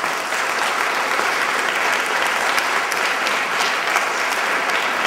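Audience applauding steadily, a dense wash of many hands clapping.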